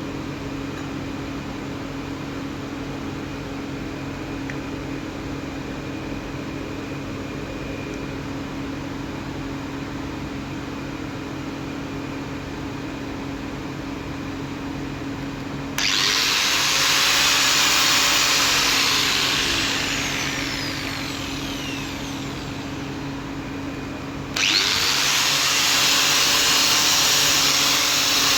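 Angle grinder running steadily with a constant motor whine. About halfway through, the polishing attachment is pressed onto steel and a loud, harsh hiss comes in. It eases off, breaks off briefly near the three-quarter mark, and starts again as the tool is set back on the metal.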